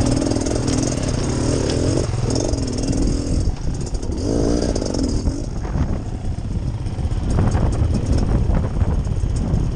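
Beta Xtrainer 300 two-stroke dirt bike engine at low revs on a rocky trail, the throttle opened and closed so the pitch rises and falls about halfway through, with clattering knocks in the second half.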